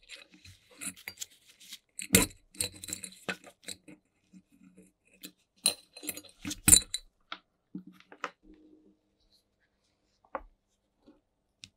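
Metal parts of a 1950s Big Beam flashlight being handled: the reflector and lamp socket give irregular small clicks, clinks and scrapes as a wire is fed through the socket. The sharpest knocks come about two seconds in and twice around six to seven seconds in, and after that there are only a few faint ticks.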